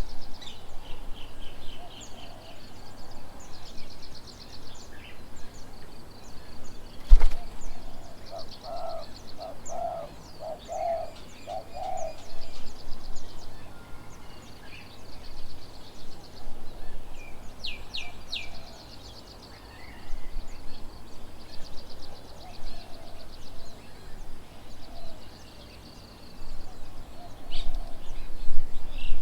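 Garden birds calling: repeated high, rapid trilled chirps come and go throughout, and a run of about six low, evenly spaced notes sounds partway through. A single sharp knock about seven seconds in.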